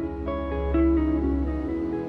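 Background music: plucked string notes in a slow melody over a low sustained bass note.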